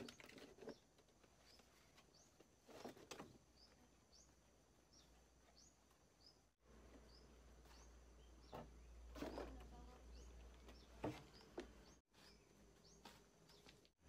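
Faint outdoor ambience with a small bird giving a short high chirp over and over, about once a second. Scattered knocks and clatters from wooden boards being handled come through it, a few loudest near the start and around the middle.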